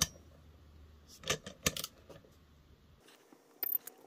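Sharp metallic clicks and taps of hand tools on the engine's crankcase bolts: one at the start, a few more a second or so in, and a couple near the end. Near the end a digital torque wrench gives a short high beep as it reaches its set torque.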